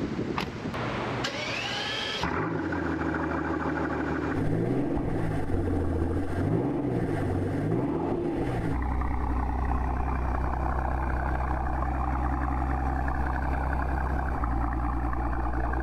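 Mercedes-AMG S65 coupe's twin-turbo V12 starting up about two seconds in, revved up and down a few times, then idling steadily. The last half is recorded close to the quad exhaust tips, so the low exhaust note is much louder.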